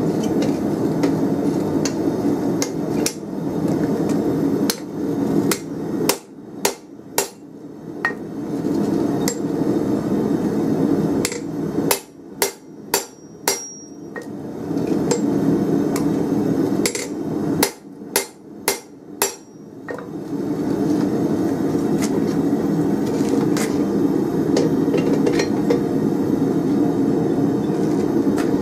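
Hand hammer striking a hot round steel bar held in a spring fuller on the anvil, fullering a neck into it. Sharp, ringing blows come in quick runs of three or four, with a steady low rushing noise under most of it that drops away during the clearest runs.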